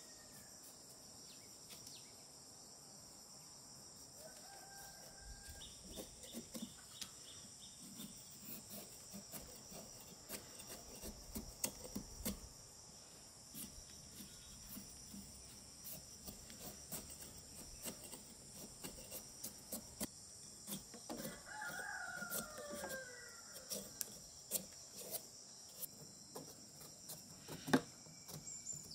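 Cleaver blade shaving the skin off a green gourd in a string of short scrapes and clicks, with a steady chorus of crickets behind. A rooster crows once past the middle.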